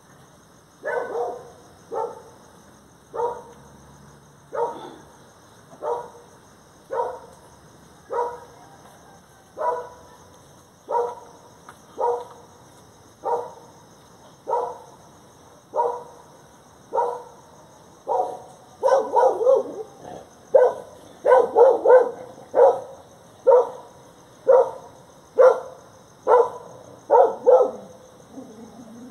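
A dog barking steadily, about one bark a second, with a quicker, louder flurry of barks about two-thirds of the way through.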